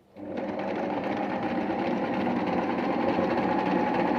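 Singer electric sewing machine running steadily as it stitches, coming in after a brief moment of near silence at the start.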